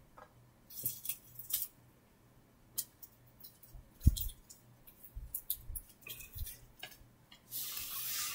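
Faint scattered clicks and rustles from plush toys being handled on a rug, with a single low thump about four seconds in and a louder stretch of rustling near the end as a hand sweeps the toys.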